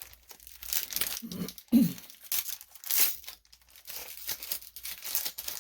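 Foil wrapper of a trading card booster pack being torn and crinkled in short crackly bursts. A brief vocal sound that falls in pitch comes just under two seconds in.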